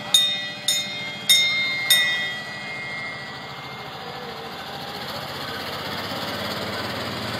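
Small bell on a children's trackless party train rung four times, about every half second, each strike ringing on and the last one longest. After that the train's small engine runs steadily as it drives past.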